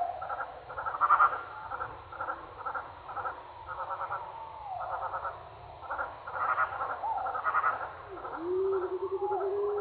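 Slowed-down recording of an early-morning forest bird chorus, its trills and whistles dropped low in pitch and drawn out. Clusters of quick repeated notes come again and again, with sliding whistles between them, and a long held, pulsing note enters near the end.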